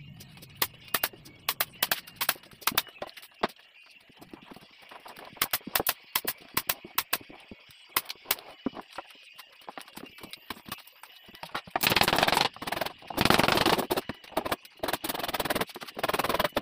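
Sharp clicks and taps from hand work along the edge of a laminate-covered cabinet, scattered and irregular. About twelve seconds in, louder bursts of rough noise take over.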